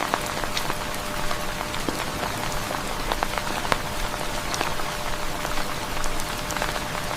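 Steady rain falling, a dense hiss dotted with many small drop ticks, starting abruptly.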